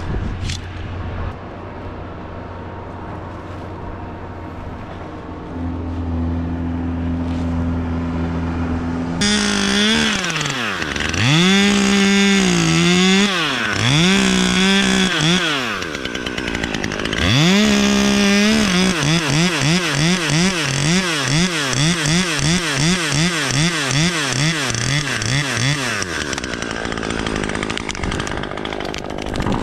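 A steady low engine hum, then about a third of the way in a chainsaw starts up loud. It revs up and down several times, then runs at high speed with its pitch wavering quickly, two or three times a second, as it cuts. It stops near the end.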